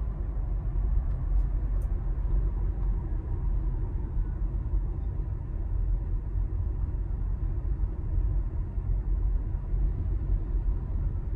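Steady low road rumble and tyre noise heard inside the cabin of a Tesla electric car driving at city-road speed, with no engine sound.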